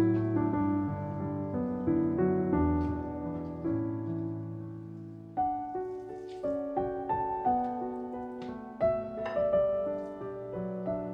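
Background piano music: a slow, gentle melody over held chords, each note sounding and fading away.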